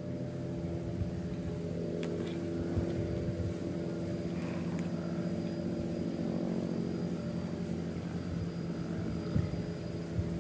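An engine running steadily, a low even hum that neither rises nor falls, with a few small clicks over it.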